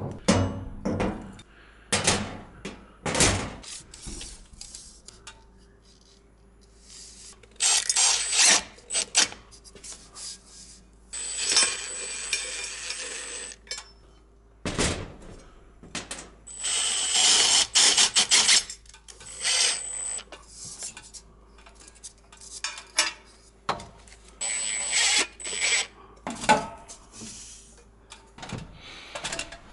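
Slotted steel unistrut channel being handled: scattered clanks and knocks of the metal, with several stretches of scraping and rubbing, some carrying a thin high ring.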